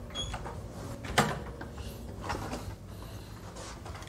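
A single sharp click about a second in, over quiet room noise with a few faint ticks.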